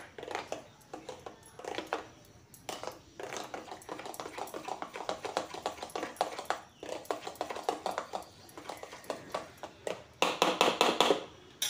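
Metal spoon beating semolina batter in a stainless steel bowl: a rapid run of clicks and scrapes as the spoon strikes and drags against the bowl, getting louder about ten seconds in. The batter is being mixed quickly right after Eno fruit salt has been added.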